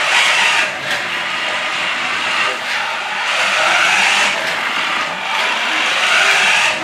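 Toy RC Porsche 918 Spyder's small electric motor and gears whirring as it drives over a hardwood floor, with its tyres on the boards. The whir swells and eases off several times as the throttle is worked.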